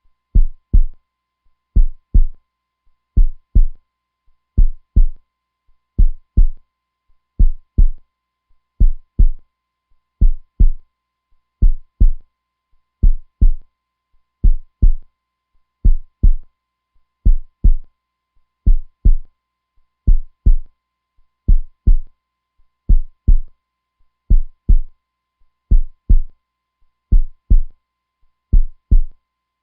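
Heartbeat sound, a steady lub-dub: two low thuds close together, repeating evenly about once every second and a half.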